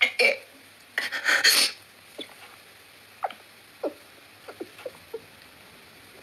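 A woman crying: a sharp sniff at the start and a loud, shaky sobbing breath about a second in, followed by several short, faint whimpers.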